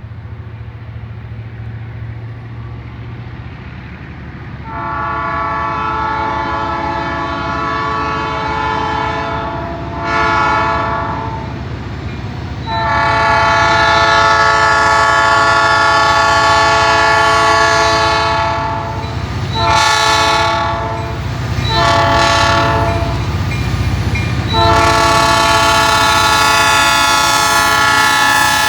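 Diesel freight locomotive air horn sounding a series of long and short blasts for a grade crossing, over the low rumble of the approaching locomotives' diesel engines. The horn comes in about five seconds in, and the last long blast is still sounding at the end.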